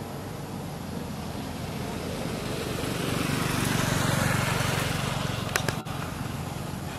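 A vehicle passing on the road, its noise building gradually to a peak about four seconds in and then fading, with two sharp clicks shortly before the end.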